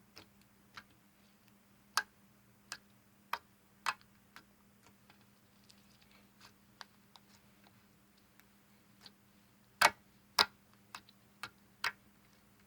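Glitter slime being pressed and worked by hand, giving off scattered sharp clicks and pops at irregular intervals, the two loudest close together about ten seconds in.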